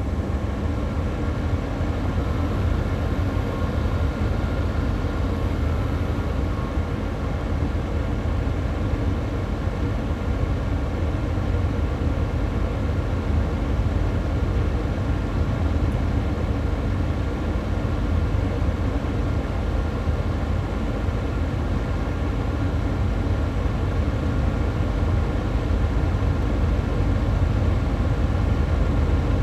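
Xiaomi Mi Air Purifier fan running steadily on high flow, heard close up: a continuous rushing of air over a low rumble, with a faint steady whine on top.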